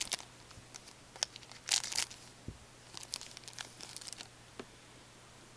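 Trading cards and their foil pack wrapper handled in gloved hands, crinkling and rustling in short scattered bursts.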